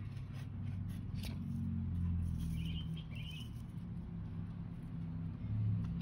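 Low, steady rumble of an idling engine, with a bird chirping briefly twice about halfway through and a few faint clicks.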